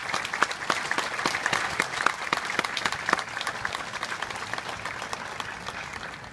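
Crowd applauding, with sharp individual claps close by over the wash of clapping; the applause thins out and dies down over the last few seconds.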